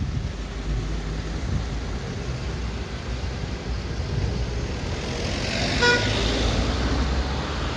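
Street traffic with cars passing, one swelling past about five to seven seconds in, and a short car horn toot about six seconds in.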